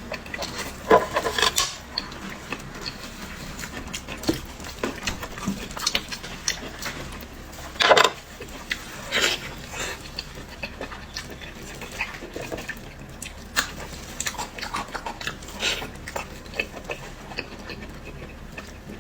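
Close-miked eating sounds: a person chewing pig's head meat, wet mouth noises and smacks with many short sharp clicks, the loudest about a second in and about eight seconds in.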